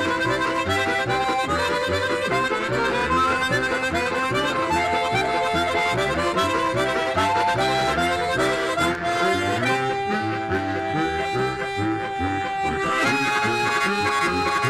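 Instrumental music: a melody of quick changing notes over a steady, rhythmic bass, with longer held notes about two-thirds of the way through.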